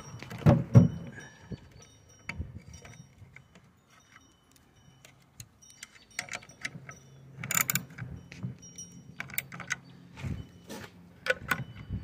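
Light metallic clinks and clicks of small steel bolts and washers being turned and tightened into a catalytic converter's sheet-metal heat shield, with a short denser metallic rattle about seven and a half seconds in.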